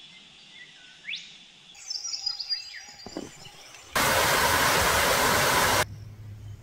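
Birds calling and chirping. About four seconds in, the loud, even rush of water pouring over a weir cuts in for about two seconds and stops suddenly.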